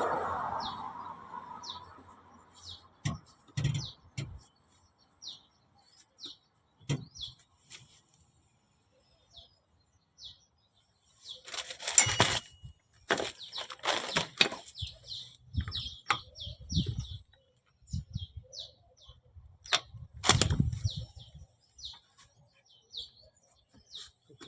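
Small birds chirping again and again in short, high calls, with scattered knocks and clatters of parts being handled, in clusters near the middle and about two thirds of the way through.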